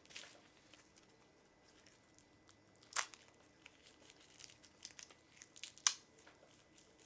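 Crinkling and crackling as a plastic snack pack and crisp sheets of grilled laver (roasted seaweed) are handled and torn apart, in scattered faint crackles with two sharper ones about three seconds in and near six seconds.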